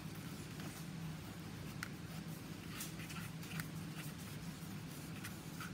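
Paintbrush working paint onto a cardboard paper towel roll: faint, scattered scratchy strokes over a steady low hum.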